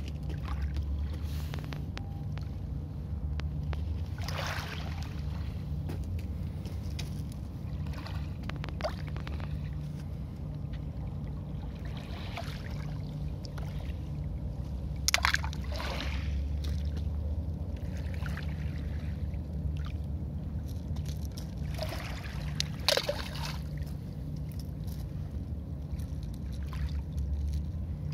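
Small waves lapping and washing over a pebble shore in calm sea water, with a few brief splashes, the loudest about halfway through and again near the end, over a steady low rumble.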